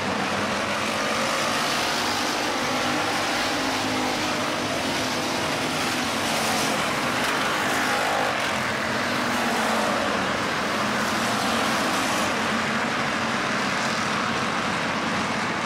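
A pack of IMCA Hobby Stock race cars running on a dirt oval, their engines droning steadily as the cars lap.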